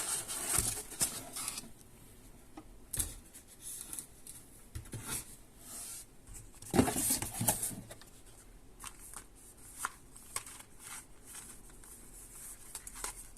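Packaging of a graphics card box being handled: cardboard and plastic rustling and scraping in short bouts, with scattered light knocks. The loudest rustle comes about seven seconds in.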